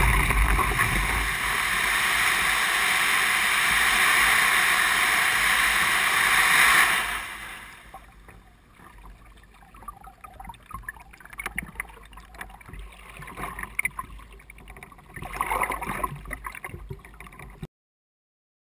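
Kayak moving through lake water: a loud, steady rushing of water and wind at the deck-mounted camera, which drops away suddenly about seven seconds in. After that come quieter, irregular paddle splashes and drips as the blade dips into the water, until the sound cuts off about a second before the end.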